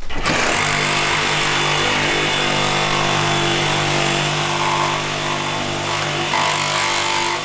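A power tool motor running steadily at constant speed, a loud even hum and whir with no let-up.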